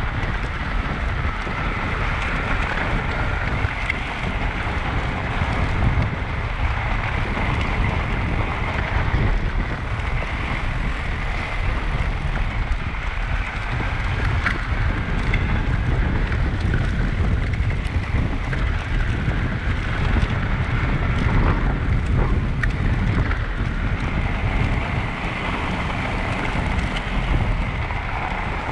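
Steady wind noise on the microphone of a riding fat-tyre e-bike, with the low rumble of its tyres rolling over packed snow.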